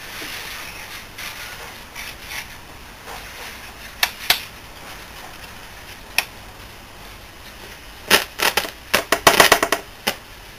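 Static hiss and crackle from the loudspeaker of an old Astor valve radio as its controls are turned, with scattered sharp pops and a dense burst of crackling about eight to ten seconds in. No station comes through clearly, which the owner puts down to needing an external antenna.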